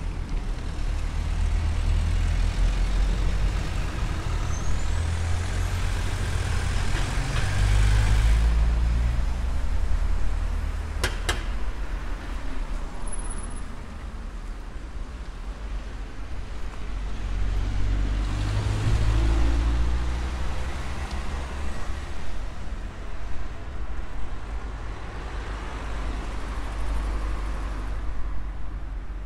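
Motor vehicles passing on a street: a low engine rumble that swells as one goes by and fades, then swells again with a second one later. A single sharp click about a third of the way through.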